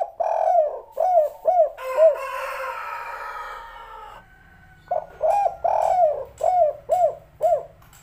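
Spotted dove cooing in two quick runs of about six short arched notes each. The second run starts about five seconds in. Between the runs a hiss fades out.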